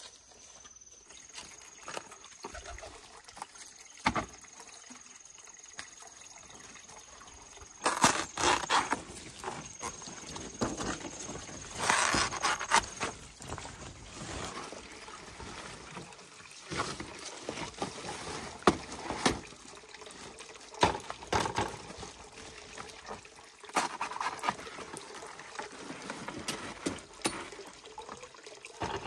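Rustling among broad leaves and a knife cutting into thick, juicy elephant-ear (taro) stalks, with irregular snaps and knocks from about eight seconds in. A faint, thin, steady high whine runs through the first half.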